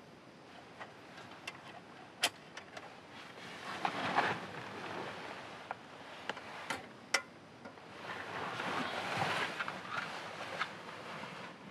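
Soft rustling of movement and handling that swells twice, with scattered small clicks.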